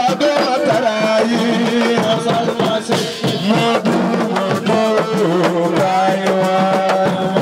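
Music with fast, dense hand-drum strokes under a held melody that steps between notes.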